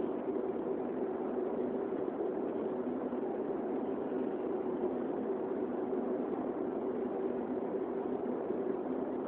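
Airbus A330's Rolls-Royce Trent 700 engines at low thrust, heard from inside the passenger cabin as a steady hum with a constant drone, the airliner still on the ground before its take-off run.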